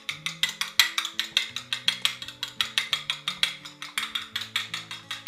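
Fork beating an egg in a ceramic plate, clicking against the plate in a fast, even rhythm of about seven strokes a second, over background music with held low notes.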